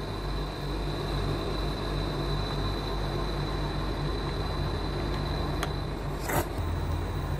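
Induction cooktop running under a simmering pot, a steady hum with a thin high-pitched whine over it. A light click and a short knock about six seconds in.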